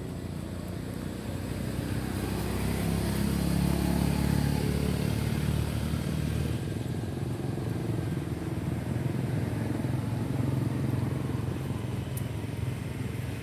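A motor vehicle's engine running, swelling over the first few seconds and then holding steady.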